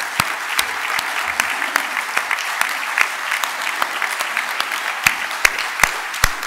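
Audience applauding steadily, with a few louder single claps close to the microphone standing out.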